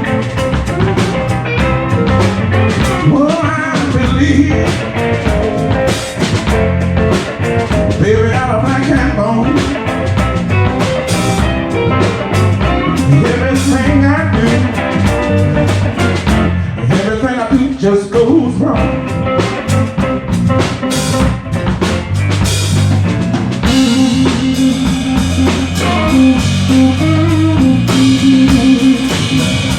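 Live blues band playing an instrumental passage: electric guitar, bass guitar and drum kit at a steady beat, the sound filling out partway through.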